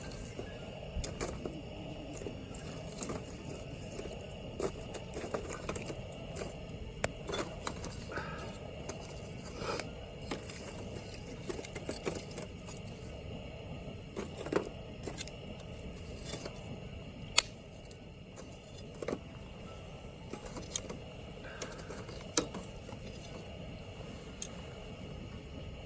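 Wood campfire crackling: irregular sharp pops and snaps over a steady low rush, with one louder pop about two-thirds of the way through.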